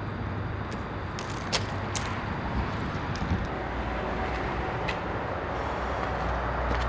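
Steady outdoor background noise with a low rumble like distant road traffic, broken by a few sharp clicks or taps.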